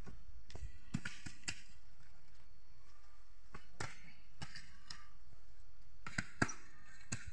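Long-handled hoes chopping into and scraping damp earth, with irregular sharp strikes, two close together a little after six seconds in.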